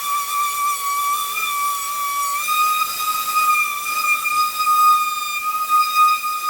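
Steady high-pitched whine of a power sanding tool taking paint off a steel air tank. The pitch wavers slightly and rises a little about two and a half seconds in.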